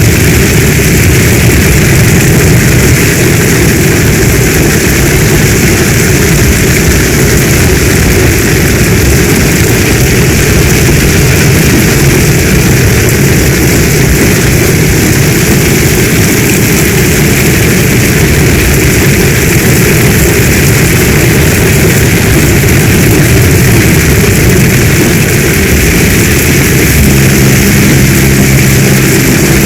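Heavy storm rain falling in a dense, steady, unbroken rush with a deep low rumble. Near the end a low, steady hum of a few stacked tones comes in under the rain.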